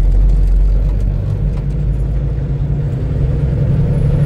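Semi-truck's diesel engine running while driving, heard from inside the cab: a steady low drone that grows a little louder near the end.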